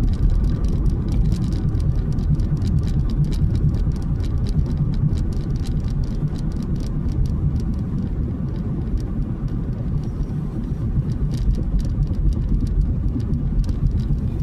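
Car driving on a wet road, heard from inside the cabin: a steady low rumble of tyres and engine, with many faint, irregular ticks and hiss above it.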